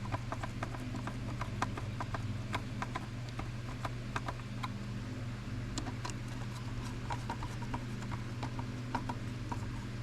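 Small screws being turned by hand with a screwdriver into a plastic gauge cluster housing: quick, irregular clicks and ticks, several a second.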